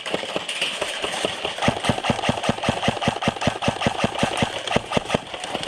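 Airsoft gun firing a long full-auto burst, a fast, even rattle of shots at about seven a second, growing louder about a second and a half in.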